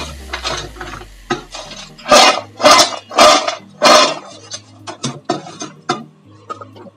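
Crisp fried kurkure sticks rattling and scraping against a steel bowl as they are tossed with masala, with four loud rattles in the middle and lighter ones after.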